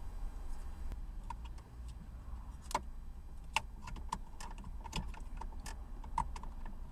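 Irregular light clicks and knocks of hard plastic as the climate control unit is handled and slotted into the dashboard, some with a brief ring, over a low steady rumble.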